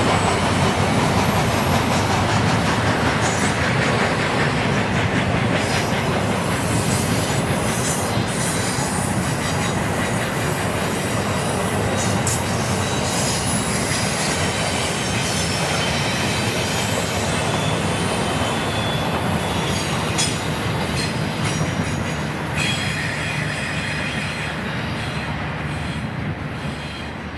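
Intermodal freight train's cars rolling along the rails: a steady wheel-on-rail rumble with thin high wheel squeals now and then, growing gradually fainter toward the end.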